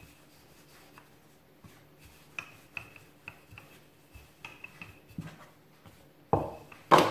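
Wooden rolling pin rolling out yeast dough on a floured countertop: soft rubbing with a run of light clicks and taps, then two louder knocks near the end.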